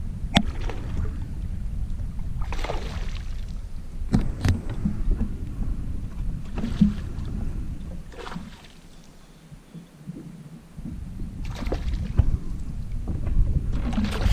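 Water lapping against the hull of a small fishing boat under a low rumble of wind on the microphone, broken by sharp knocks on the boat and several brief swishing noises. The rumble drops away for a couple of seconds past the middle.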